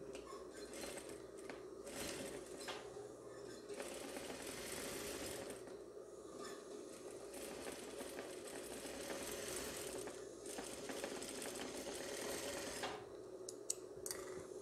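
Sewing machine stitching a lining seam in several runs with brief pauses, stopping near the end, followed by a couple of sharp clicks.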